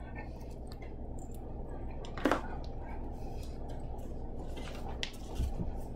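A sheet of paper being handled and moved on a desk, with a soft knock about two seconds in, over a steady low room hum.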